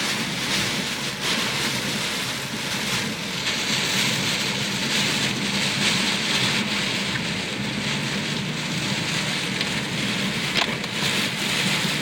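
Heavy typhoon rain coming down in a steady, even rush.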